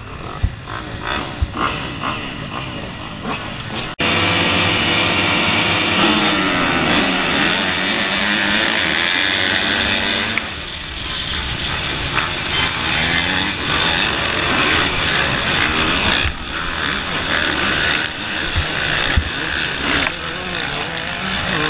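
A pack of motocross bikes, among them the rider's own two-stroke Yamaha YZ125, revving in bursts while held at the start. About four seconds in, the sound jumps to all engines at full throttle, pitch climbing as they accelerate away, then running hard.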